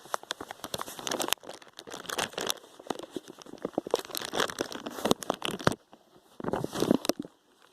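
Close, irregular crinkling and rustling handling noise made of many quick crackles. It pauses briefly a little before the six-second mark, then comes back in one more short burst.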